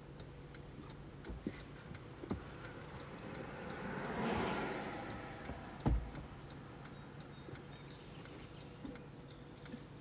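A car passing by outside, its noise swelling and fading about four to five seconds in, over a faint steady low hum. A few small knocks, the sharpest one near six seconds in.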